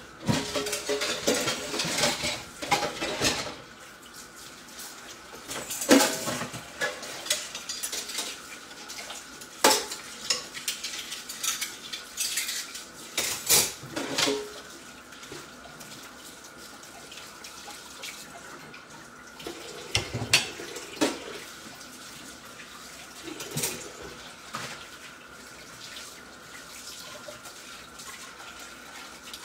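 Pea-and-egg frittata frying in a pan on low heat with a steady sizzle. Dishes and utensils clink and clatter off and on, most busily in the first few seconds.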